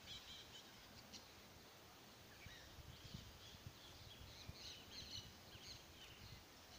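Quiet garden ambience: scattered faint bird chirps over soft scrapes and taps of a small hand hoe working the soil.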